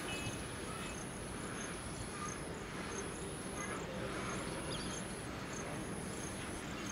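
Insects trilling: a thin, high-pitched trill held for a second or more at a time with brief gaps, with faint regular chirps beneath, over a steady low outdoor hum.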